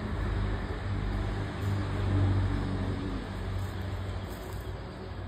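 Low, steady engine rumble of a motor vehicle running nearby, swelling about two seconds in and then easing.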